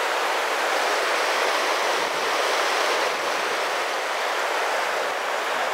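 Steady rush of a fast, rough-and-tumble mountain river tumbling over rocks through turbulent pocketwater.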